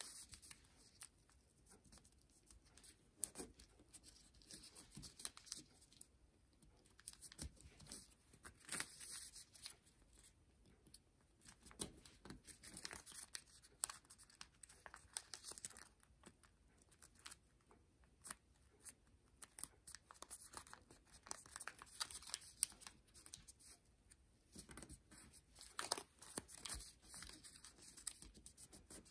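Faint rustling and crinkling of thin kami origami paper being folded and creased by hand, with short sharp crackles as folds are pressed flat.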